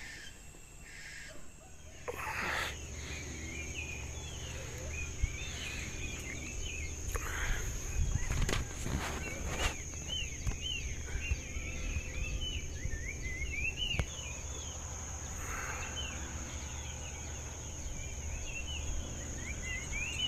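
Birds chirping, a rapid run of short rising and falling notes, over a steady high-pitched insect drone. Now and then a rustle or bump, most around the middle.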